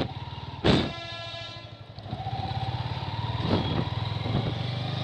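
Motorcycle engine running as the bike pulls away, the engine note rising steadily under acceleration from about two seconds in. A sharp clack about 0.7 s in, with a brief ringing after it.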